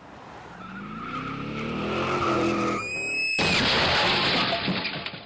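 Car sound effect: an engine revs up rising in pitch, tires squeal for about half a second, and then a sudden loud crash comes about three and a half seconds in, fading away at the end.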